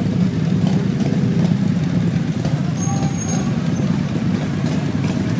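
Motorcycle engines running with a steady low rumble.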